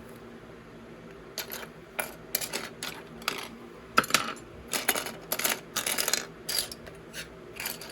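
Small hard plastic LEGO pieces clicking and clattering as they are handled and fitted together, a rapid run of light clicks that is busiest in the middle.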